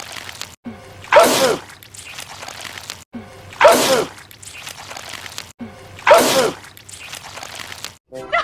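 A man sneezing loudly and wetly, the same sneeze repeated three times about two and a half seconds apart. Each is a sudden burst ending in a falling cry.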